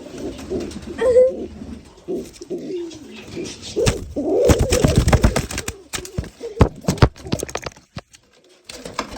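Pigeons cooing in low, warbling tones, with a run of sharp clicks and knocks in the middle of the stretch.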